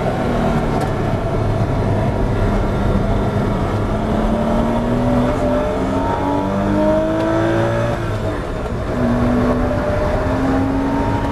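Porsche 986 Boxster S flat-six race engine, heard from inside the car, running through a slow corner and then accelerating hard. The engine note rises, breaks off for an upshift about eight seconds in, and rises again.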